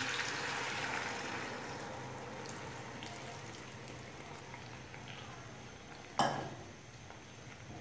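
Jaggery syrup poured into hot oil in a pot, sizzling and bubbling hard at first, then fading down to a gentle simmer. A single sharp knock about six seconds in.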